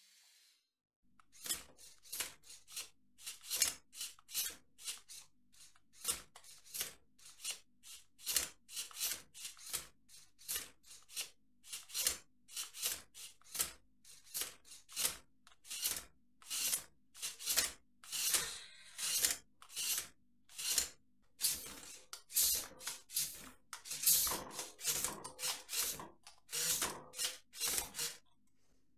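Lego Technic pneumatic system letting out air in short hissing puffs, one or two a second and unevenly spaced, with a few longer hisses, as its air cylinders are switched and moved.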